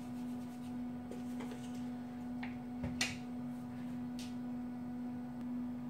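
A steady low hum with a few faint clicks and taps from a salt jar being handled on the kitchen counter; the sharpest tap comes about three seconds in.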